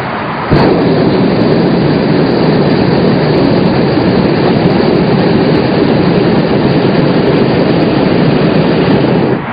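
Hot-air balloon's propane burner firing: a loud, steady roar that cuts in about half a second in and shuts off just before the end.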